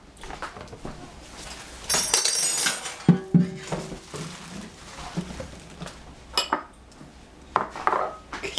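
Kitchenware being handled on a tiled countertop. There is a brief rubbing, scraping sound of wiping about two seconds in, then a sharp knock with a short ring just after three seconds, and a few lighter clinks and knocks near the end.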